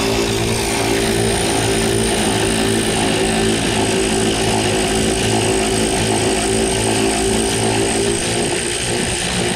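A power tool's motor running steadily, driving a 15 mm socket on long extensions to back off the upper brake booster mounting nut behind the dash. Its tone changes about eight seconds in.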